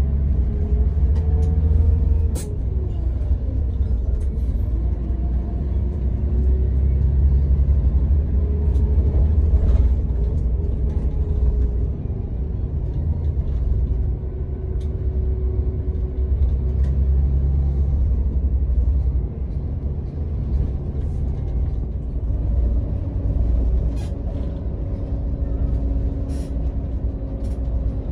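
Scania K124 IB bus heard from inside the passenger cabin: the engine running with a deep, heavy rumble, its note rising and falling as the bus changes speed, with a few sharp clicks or rattles, one a couple of seconds in and two near the end.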